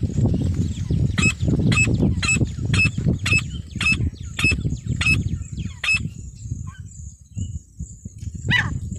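Female francolin (teetar) calling: a run of about nine short, sharp, high calls at roughly two a second, stopping about six seconds in, then one more call near the end, over a low rumbling background noise.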